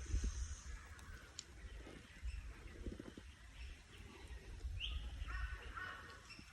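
Wild birds calling with scattered short chirps, one rising chirp near the end, over an uneven low rumble on the microphone.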